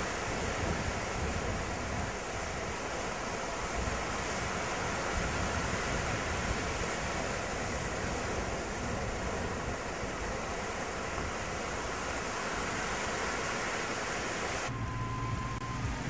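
Steady wash of ocean surf on a beach, an even rushing noise with no clear breaks. Near the end it cuts off suddenly to a quieter scene with a low steady hum.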